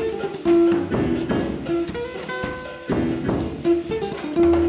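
Jazz played on electric guitar and drum kit: a single-note guitar melody over drum and cymbal hits.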